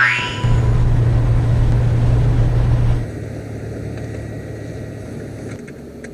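Car running on the road: a steady engine and road hum, louder for about the first three seconds and then quieter. Near the end come a few small clicks of buttons being pressed on the dashboard phone keypad.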